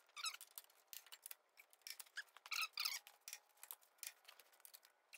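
Torque wrench ratchet clicking in quick, faint runs of short, squeaky clicks as the differential carrier bolts are tightened toward 210 foot-pounds.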